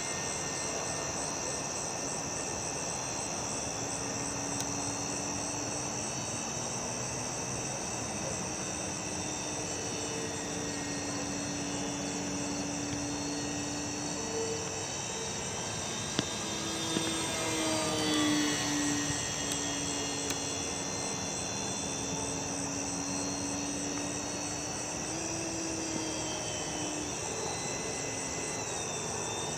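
Crickets chirping steadily while the FMS Firefly's electric motor and propeller drone overhead. The motor's hum wanders up and down in pitch with throttle, and it swells and bends in pitch as the plane passes close, about 18 seconds in.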